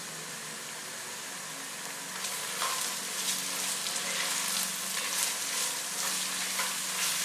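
Freshly grated carrot, celery root and parsnip sizzling in hot oil with softened onion in a pot. From about two seconds in a spatula stirs and scrapes them around the pot bottom, and the sizzle grows louder.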